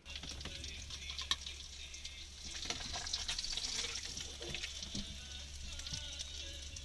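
Fish frying in hot oil in a pan: a steady sizzle with frequent small crackles, over a low steady hum.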